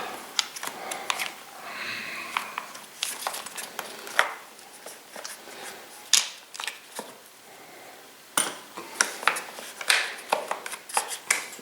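Irregular clicks, clinks and knocks of hand tools and small metal and plastic parts being handled while a chainsaw is taken apart around its carburettor, air filter housing and fuel primer.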